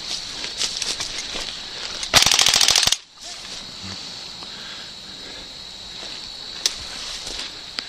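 Airsoft gun firing one short, loud full-auto burst of rapid, evenly spaced shots, about two seconds in and lasting under a second.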